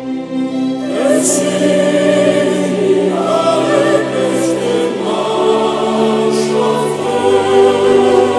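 Background music: a choir singing over sustained chords, the voices entering about a second in.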